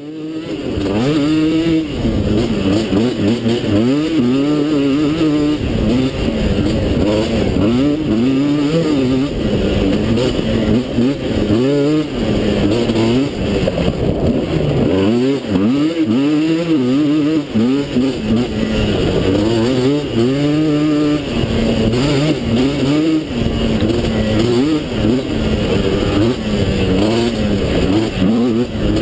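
GasGas Wild 300 quad's 300cc two-stroke engine, ridden hard on a dirt trail, revving up and falling back over and over. The pitch rises and drops every second or two with the throttle and gear changes.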